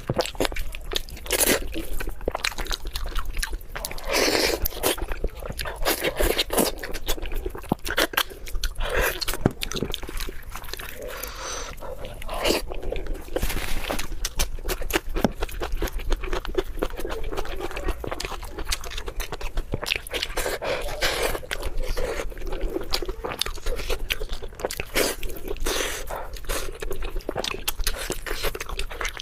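Close-miked eating: a person biting and chewing food, with many irregular crunches and wet, squishy mouth sounds running on without pause.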